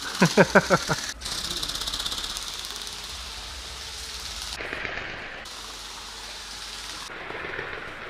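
Go Go Bird flapping-wing toy bird in flight, its small brushed motor driving the wings in a rapid flutter. It is loudest in the first couple of seconds, with a run of strong wing strokes at the start, then carries on steadier and quieter as the bird flies away across the room.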